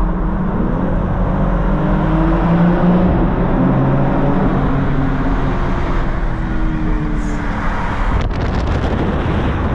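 BMW M4 Competition's twin-turbo inline-six pulling hard in a tunnel, its note rising for a couple of seconds and then slowly falling as the driver eases off, over steady wind and road rush through the open top. There is a short click near the end.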